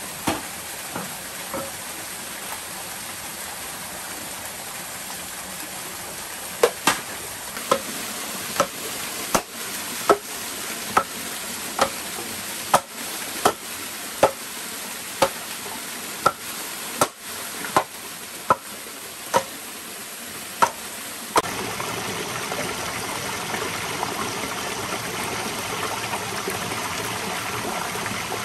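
A wooden rod rammed down inside an upright bamboo tube: about twenty sharp, hollow-ringing knocks, a little over one a second, as the tube's inner nodes are broken through to make a water pipe. A waterfall and stream rush steadily underneath, louder after the knocks stop about two-thirds of the way through.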